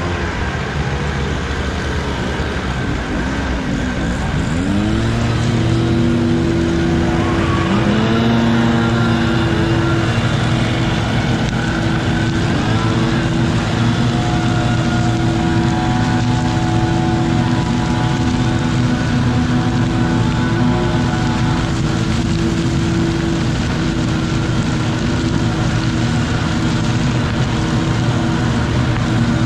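Truck-mounted leaf vacuum running and sucking leaves through its large hose; its engine revs up about four seconds in, rises again a few seconds later, then holds a steady high-speed drone with a whine.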